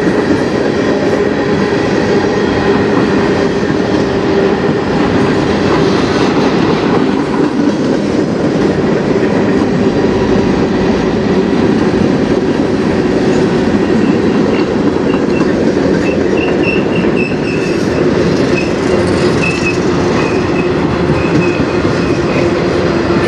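Freight train cars rolling past, a steady loud rumble of steel wheels on rail. A thin high wheel squeal comes and goes in the second half.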